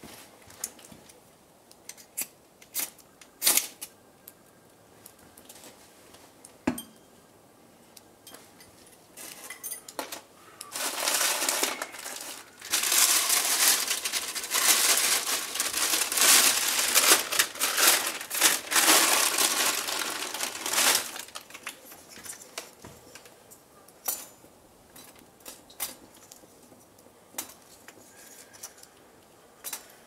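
Close handling noise: scattered sharp clicks and taps, then about ten seconds of loud rustling and crinkling, then scattered clicks again.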